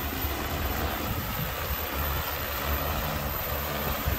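Propellers of a G200 six-rotor crop-spraying drone running steadily as it descends to an automatic landing.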